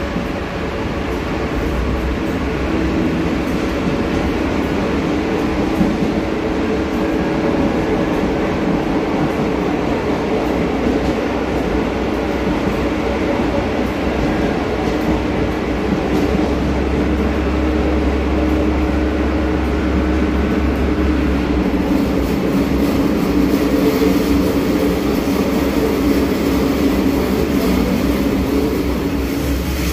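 Buenos Aires Subte Line E subway train running, a steady rumble with a low hum that shifts slightly in pitch.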